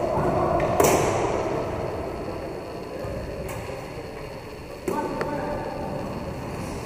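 Roller hockey play in a reverberant sports hall: a steady rumble of skate wheels on the rink floor, with sharp cracks of stick on ball, the loudest about a second in and another near five seconds, each ringing on in the hall.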